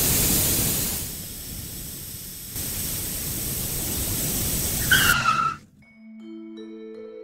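A cartoon sound effect of loud rushing noise that dips and surges again, ending in a short falling squeal like a skid about five seconds in, then cutting off suddenly. Gentle music of held, bell-like notes then enters, one note after another.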